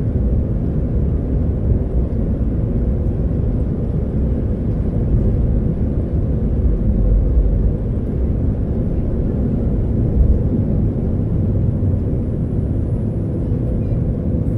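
Cabin noise of an Embraer 175 jet on its take-off roll: the twin GE CF34-8E turbofans at take-off thrust and the rumble of the wheels on the runway, a loud, steady deep roar with a faint steady drone in it.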